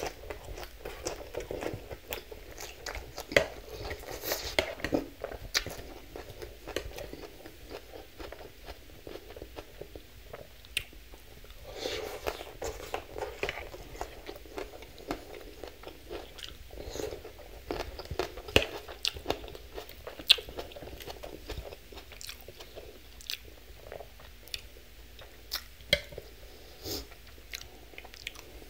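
Close-miked chewing of a mouthful of leafy salad: moist crunching of fresh greens, with sharp crisp clicks coming every second or so.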